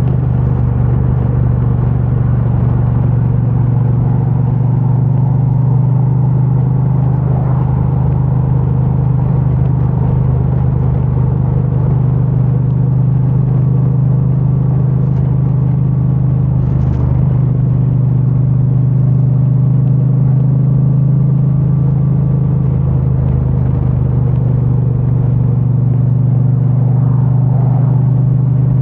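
Triumph Bonneville T100's 900 cc parallel-twin engine through its stock exhaust, running at a steady, even pitch while the motorcycle cruises, heard muffled from a microphone inside the rider's backpack. A short noisy hiss passes about seventeen seconds in.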